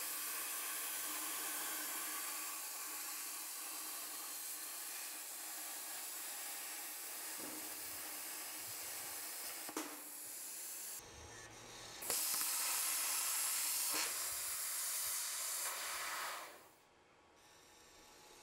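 Plasma cutter arc hissing steadily as the CNC machine torch cuts through steel plate. The hiss is a little louder about two-thirds of the way through, then dies away near the end as the arc goes out.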